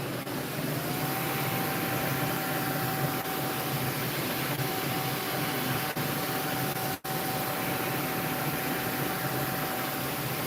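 Steady mechanical whirring hum with a thin whine that rises during the first second and then holds at one pitch. The sound cuts out for an instant about seven seconds in.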